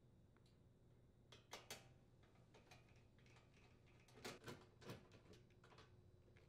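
Faint clicks and light taps of a hand screwdriver turning screws into a dishwasher's sheet-metal frame, a few at a time, about a second and a half in and again after four seconds, in near silence.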